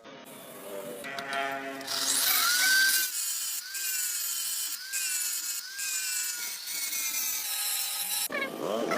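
A hand or power tool working, with repeated strokes and a whining tone that rises and falls about once a second.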